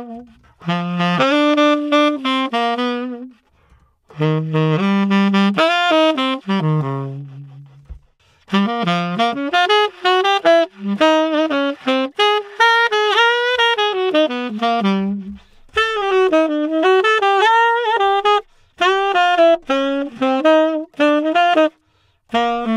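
Tenor saxophone playing short jazz phrases, first through a Theo Wanne Shiva IV metal mouthpiece and then through an Ambika IV, as a tone comparison. The phrases are several seconds long, each broken off by a brief silence.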